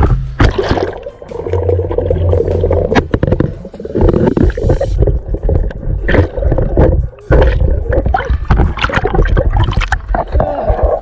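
Water gurgling and splashing close around a waterproof camera in a swimming pool, with many short splashes and knocks.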